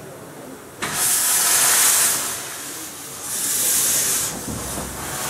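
Steam locomotive Dolgoch, a Fletcher Jennings 0-4-0 well tank, hissing steam from its open cylinder drain cocks as it moves slowly along the platform. The hiss surges loudly twice, about a second in and again after three seconds, with a lower hiss between.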